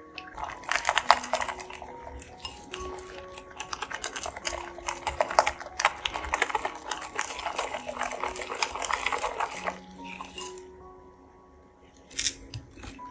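Silicone whisk beating egg and flour into batter in a glass bowl: rapid scraping and clicking strokes that stop about ten seconds in, then one sharp tap near the end.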